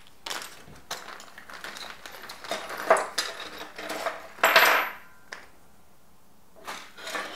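Small plastic and metal grinder parts (a motor plate, screws and lock washers) being taken out of a plastic bag and set down on a tabletop: a run of light clicks and clatters with bag rustling, loudest about three and four and a half seconds in.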